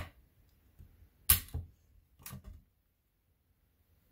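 Two sharp taps about a second apart, the first the louder, with a few faint handling ticks: a metal strip and polymer clay being handled and set down on a glass craft mat.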